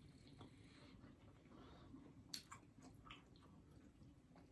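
Faint chewing of food, with a few soft mouth clicks about two and a half and three seconds in.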